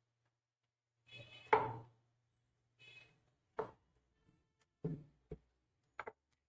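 Rolling pin working dough balls thin on a rolling board: short rubbing passes and a series of dull knocks as the pin comes down on the board.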